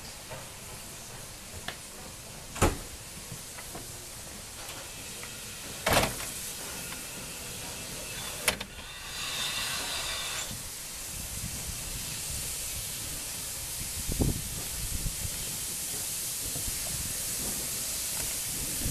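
Steam locomotive approaching slowly, its steam hissing and growing steadily louder as it draws near. Three sharp knocks stand out in the first half, the loudest sounds here.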